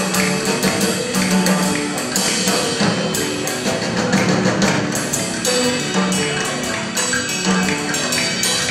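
Live band music: electric guitars hold notes over a busy, steady clatter of hand percussion, wooden sticks clicked and tapped.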